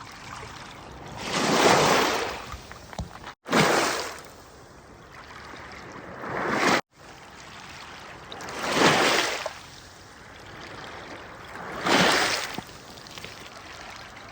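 Small waves from Lake Huron washing onto the shore, one swell about every two to three seconds, each rising and falling away over about a second.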